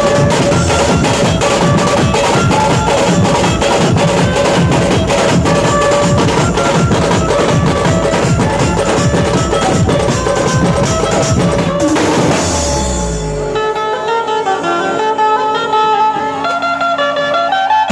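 Live dhumal band music: large barrel drums and a snare drum beating a fast, dense rhythm under a sustained melody line. About twelve seconds in the drumming stops with a falling low sweep, and a melody of separate notes carries on alone.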